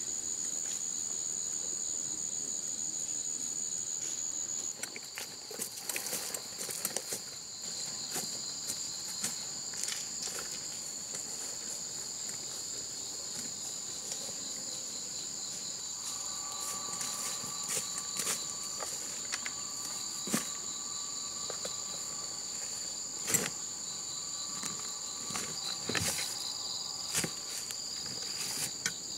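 A steady, high-pitched chorus of insects calling, with scattered light clicks and knocks from footsteps in the undergrowth.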